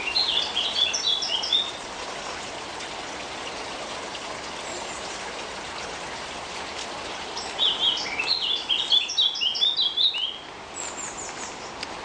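A songbird sings two phrases of quick, high notes, one at the start lasting under two seconds and another about seven seconds in lasting about three seconds, over a steady background hiss.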